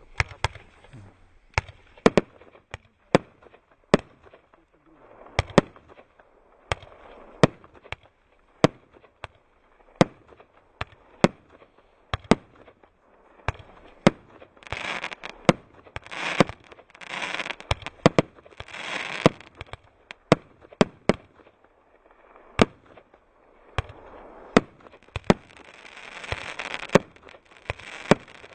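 Multi-shot firework cake firing: a steady string of sharp bangs, about one or two a second, with two stretches of dense crackling from the bursting stars, the first in the middle and the second near the end.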